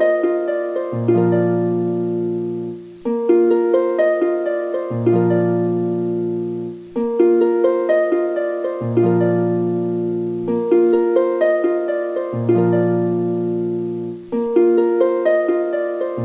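Background music: a looping phrase of plucked, harp-like notes that repeats about every two seconds.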